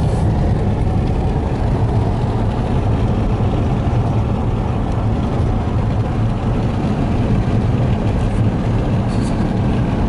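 Steady low rumble of a car's engine and tyres heard from inside the cabin while driving along a paved road.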